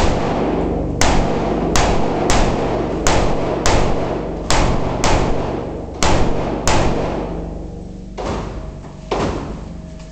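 Schmeisser M5F AR-15 rifle in 5.56×45 mm, fitted with a compensator, firing about eleven shots in quick succession, roughly one every half second to second. A pause of about two seconds comes before the last shot. Each report rings on in the enclosed, reverberant indoor range.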